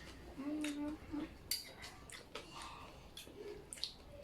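Scattered light clicks of spoon and fork on a plate while eating, with a short hummed voice sound near the start.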